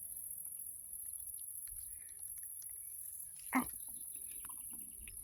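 A kitten, mostly quiet, with faint small ticks and one short mew about three and a half seconds in.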